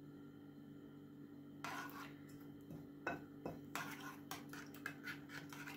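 Metal spoon scraping and clinking against a ceramic bowl, mixing milk into oat-flour and egg batter, starting about a second and a half in with irregular scrapes and short clinks.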